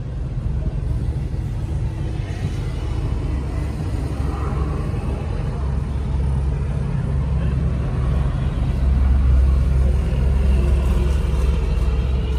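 A heavy engine running with a loud, steady low rumble, a little louder in the last few seconds.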